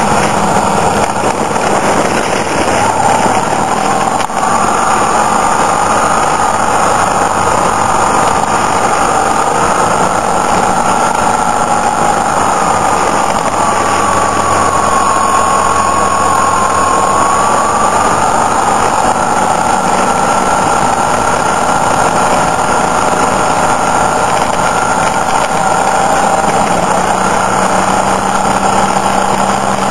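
Motorcycle engine running steadily while riding along a winding road, with heavy wind and road noise over the microphone. The engine's pitch sags gently around the middle and then climbs back.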